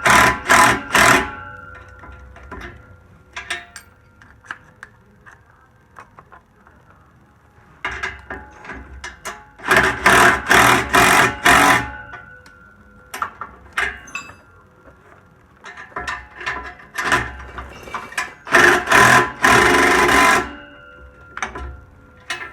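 Wrench tightening a 9/16 nut and bolt on the exhaust flange, clicking in three bursts of quick strokes, each lasting a second or two, with scattered light metal ticks between them.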